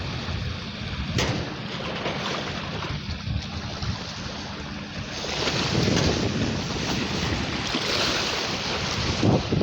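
Wind buffeting the microphone over the wash of sea surf, a steady rushing noise that swells and grows louder about halfway through.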